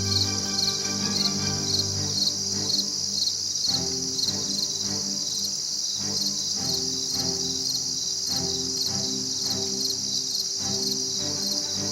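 Crickets chirping in a steady, even pulse of about four a second, with background music of sustained notes underneath.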